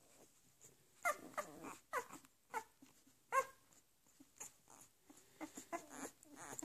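Young Leonberger puppies squeaking and whimpering in short, high, sliding calls: a run of them in the first few seconds, then a pause, then more near the end.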